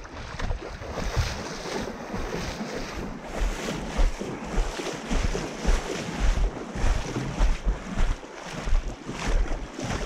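River water rushing and splashing, with wind buffeting the microphone in uneven low thumps.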